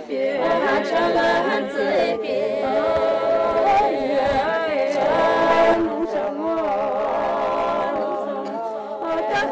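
Lotha Naga harvest folk song: a group of voices singing unaccompanied in long held notes with wavering pitch, a song thanking the gods for a good harvest.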